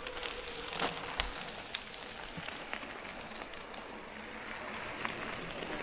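Bicycles rolling on a gravel trail: steady tyre noise with scattered clicks and rattles.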